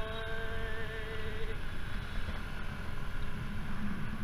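Motor scooter riding along a city street: a steady low rumble of engine and road noise. A faint held tone fades out about a second and a half in.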